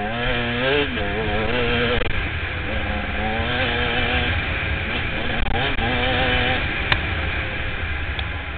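Enduro motorcycle engine running hard along a dirt trail, its pitch rising and falling with the throttle and easing off briefly a few times, with wind rushing over the helmet-mounted microphone. A single sharp click about seven seconds in.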